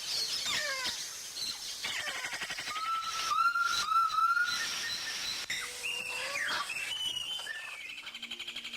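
Wild birds calling: several quick falling whistles, then a run of four short rising whistles in the middle, over a steady high, fast-pulsing background.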